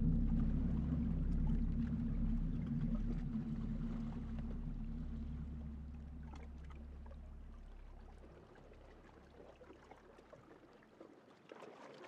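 Low, steady engine drone from a boat motor across the water, fading away over about ten seconds until it is barely heard.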